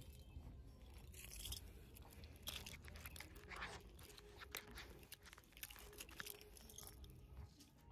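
Irregular crackling and rustling from the phone's microphone rubbing against a fleece jacket while it is carried.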